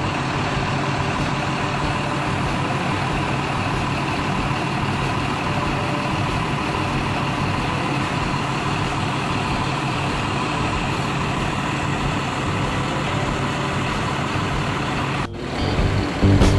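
Mercedes-Benz OH 1626 bus's diesel engine idling steadily, at an even pitch with no revving. It cuts off about a second before the end, and music follows.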